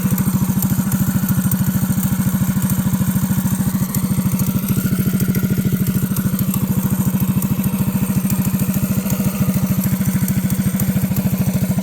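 Predator 212cc single-cylinder four-stroke engine on a mini bike running at a steady speed with even, rapid firing pulses and no rise or fall in pitch. It keeps running without cutting out, its kill-switch wire having been fixed.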